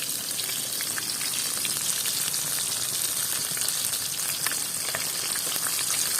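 Fish frying in hot oil: a steady sizzle with scattered small crackles and pops.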